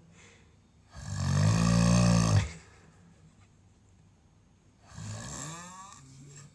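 A sleeping person snoring: one loud, deep snore about a second in lasting around a second and a half, then a fainter, higher breath near the end.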